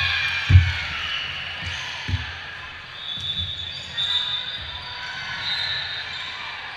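A volleyball thudding on the hardwood gym floor a few times, loudest about half a second in, with high-pitched calls and shouts from players and spectators ringing in the hall.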